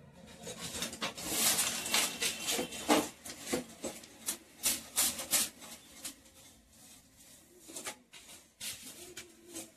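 Long-handled grass broom sweeping across a counter and gas stove in a rapid run of scratchy, swishing strokes that thin out over the last few seconds.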